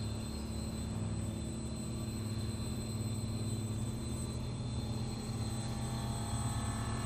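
Low, steady rumbling drone of an eerie horror-film score, with faint high sustained tones above it; more mid-range tones join near the end.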